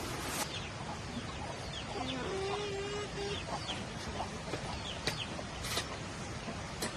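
Chickens clucking, with one drawn-out hen call about two seconds in and a few sharp clicks later on.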